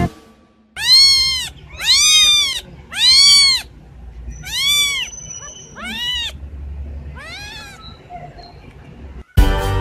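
Kitten meowing about six times: short, high-pitched calls that each rise and fall in pitch, the first three loud and the later ones fainter.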